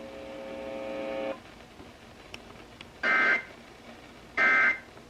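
Weather-radio Emergency Alert System signalling: a steady buzzing tone grows louder and cuts off about a second in, then two short bursts of warbling digital data tones (SAME code) about 1.4 s apart.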